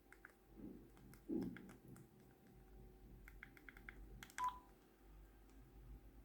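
Faint keypad presses on a mobile phone while a number is dialled: a quick run of about six short key beeps, then one brief steady beep. A couple of low handling knocks come before the beeps.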